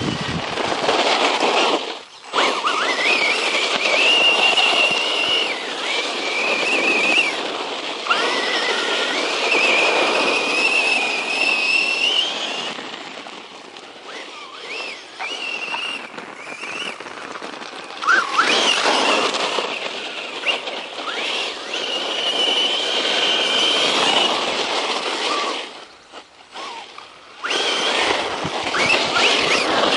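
Circuit Thrash 1/10 scale RC truck running on its brushless motor: a high whine that rises and falls with the throttle over a rushing noise, cutting out briefly about two seconds in and again near the end.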